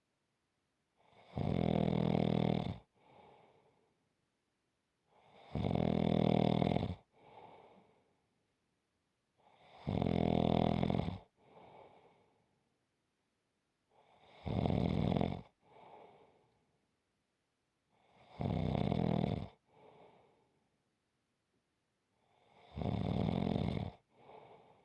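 Slow, regular snoring: six loud snores about four seconds apart, each a second or so long, and each followed by a softer, shorter breath.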